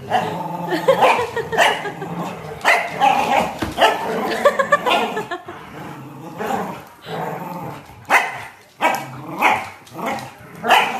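Two dogs, a corgi and a large black dog, playing tug-of-war over a rope toy, barking and growling. The barks are short and repeated, about one or two a second, with growling between them.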